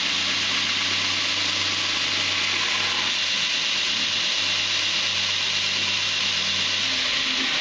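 Belt grinder grinding a D2 tool-steel blade: a steady hiss of the abrasive belt on steel over the grinder motor's hum. The hum drops away near the end.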